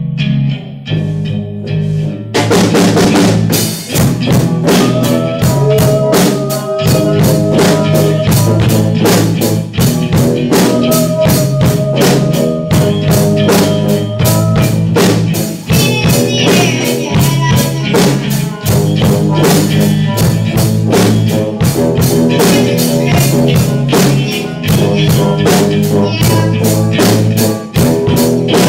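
Live rock band playing: electric guitar and bass open the song, and the drum kit comes in with a steady beat about two seconds in, the full band playing on together.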